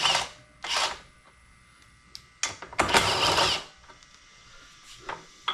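Hand work on a small-engine pressure washer's gas tank: short bursts of scraping and clattering of plastic and metal parts, with a few sharp clicks, as the tank parts are pried loose.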